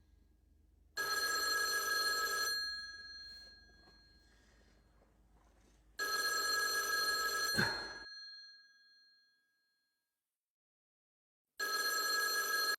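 A telephone ringing three times, each ring about a second and a half long and fading, about five seconds apart; the third ring cuts off suddenly as the call is answered.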